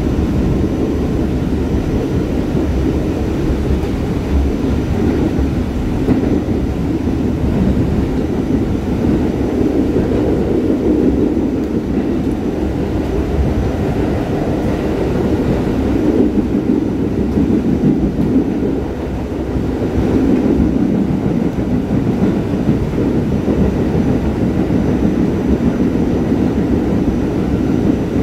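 R44 subway car running along the line: a steady rumble of wheels and running gear, heard from on board. There is a brief drop in level about two-thirds of the way through.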